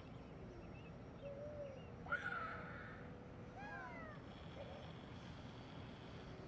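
Animal calls: one loud, harsh call about two seconds in, then a few short calls that rise and fall in pitch a second and a half later.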